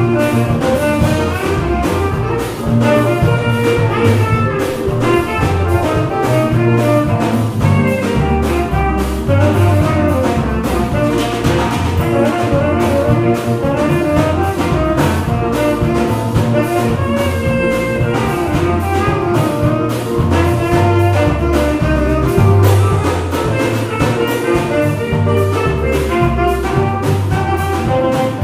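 Live small-combo jazz: a saxophone plays the melody over guitars and a drum kit keeping a steady beat.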